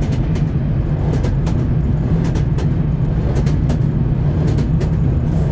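Train wheels clacking over rail joints, a pair of clicks roughly once a second, over a steady low rumble of a moving train.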